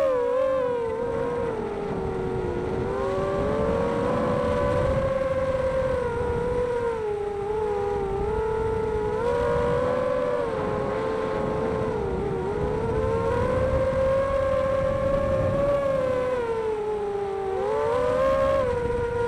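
Xbird 250 racing quadcopter's electric motors and 5x3 propellers whining steadily, the pitch rising and falling every second or two as the throttle changes.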